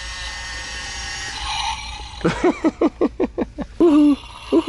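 Battery-powered toy motorcycle's electronic engine sound effect playing from its small speaker: a steady engine hum, then from about two seconds in a quick run of revs ending in a held note.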